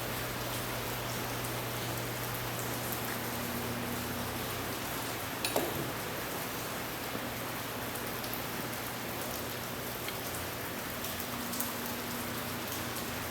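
Steady hiss with a low hum beneath it and a few faint clicks, the clearest about five and a half seconds in.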